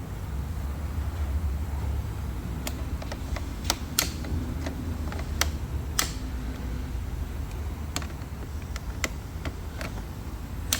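Irregular light clicks and taps of jump-pack clamps being fumbled onto small terminals in a car's fuse box, over a steady low rumble.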